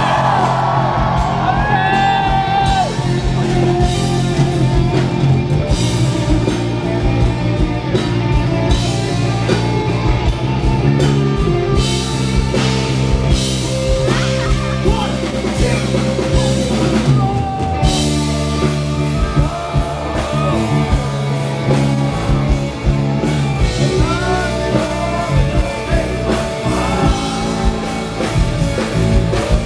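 Live rock band playing an instrumental passage with electric guitar and drum kit, with some sung or shouted vocal lines.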